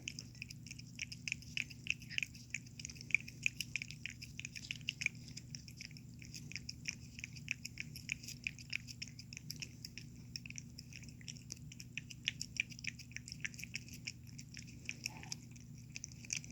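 A pet eating salmon from a plate, licking and chewing with quick, wet smacking clicks, several a second. This is a sick pet eating with a good appetite again.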